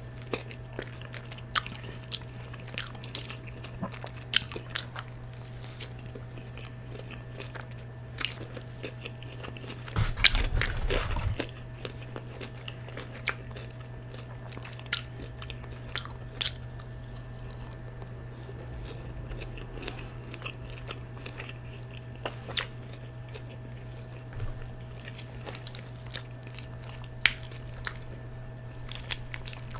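Close-up chewing and wet lip smacking of a person eating fried chicken, with sharp clicks every second or so. About ten seconds in there is a louder, rougher sound lasting about a second and a half.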